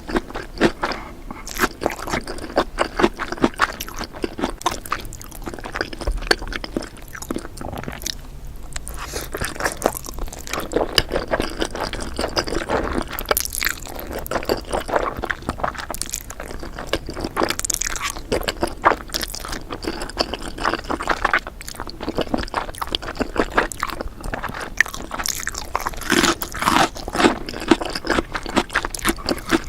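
Close-miked eating of spicy noodles: steady chewing and biting with many sharp, wet clicks and crunches, in a dense run with brief lulls.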